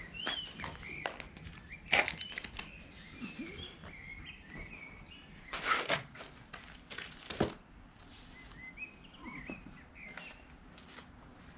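Small birds chirping in short calls, with three sharp scuffs and thuds of shoes and hands against a concrete wall as a person hangs from it and climbs up.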